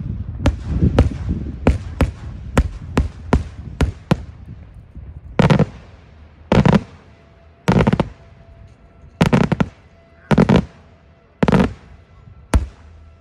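Daytime fireworks: aerial shells bursting overhead. A quick run of sharp bangs, two or three a second over a rolling rumble, fills the first four seconds. After that come heavier, rougher bursts about once a second.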